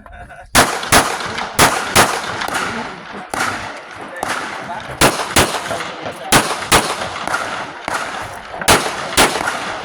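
Pistol shots fired rapidly during a timed action-pistol competition stage, about a dozen in all, mostly in quick pairs (double taps) with short pauses between pairs as the shooter moves from target to target.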